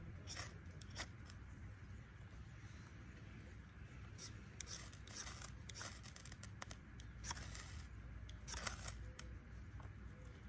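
A knife's spine scraped down a ferrocerium rod to throw sparks onto fatwood tinder: a series of short, harsh scrapes in clusters, the loudest near the end.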